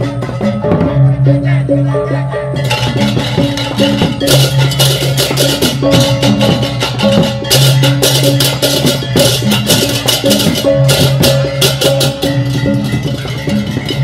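Balinese gamelan beleganjur processional music: gongs and gong-chimes sounding steady held pitches over drums. Rapid clashing cymbals join about two and a half seconds in.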